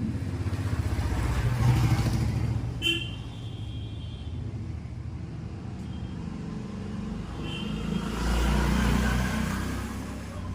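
Road traffic passing close by: a steady low rumble of vehicles that swells twice, about two seconds in and again near the end, with a couple of short high toots.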